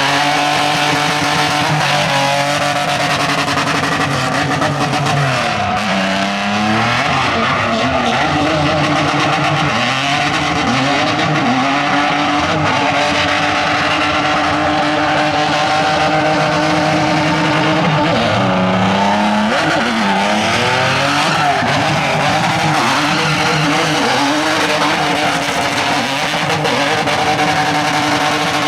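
Car engine held at high revs while the tyres squeal, as in a drifting run; the engine note drops and climbs back sharply about six seconds in and again about nineteen seconds in.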